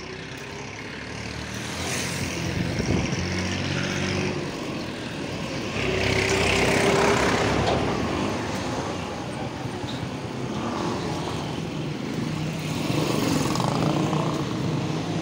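Street traffic passing close by: vehicle engines and tyre noise swell and fade as vehicles drive past, loudest about six to eight seconds in as a small minivan goes by, and again near the end.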